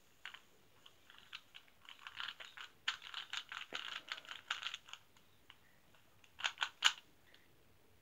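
Rubik's Cube being turned by hand, its plastic layers clicking: scattered clicks at first, a rapid run of turns in the middle, then three louder clicks near the end.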